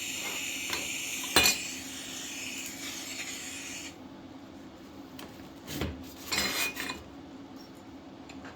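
TIG welding arc hissing and buzzing steadily, cutting off abruptly about four seconds in. It is followed by a few light metallic clinks and knocks as metal is handled.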